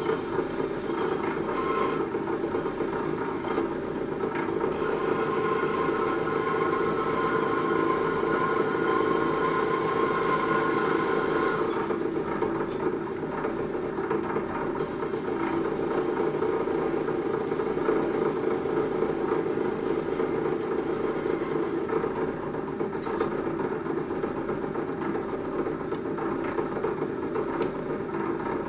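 A small electric power tool running steadily, with a constant hum and a rasping cut as it works balsa wood.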